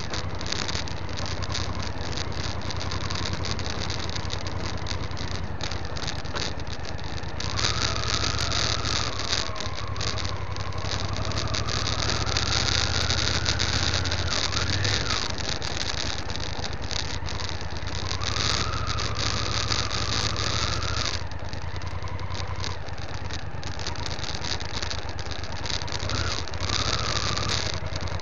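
Motorcycle engine running while riding a gravel dirt track, its pitch rising and falling in stretches as the throttle opens and closes. A steady hiss and many small clicks and rattles run throughout.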